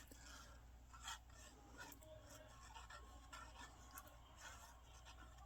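Near silence, with faint rustling and a few light ticks of cardstock pieces being handled and glued.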